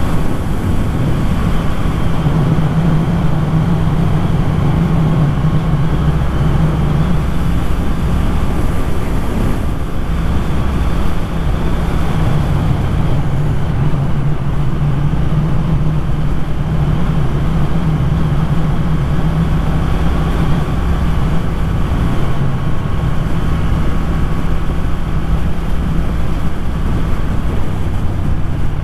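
Motorcycle engine running steadily at road speed, holding an even note, with wind rushing past the microphone.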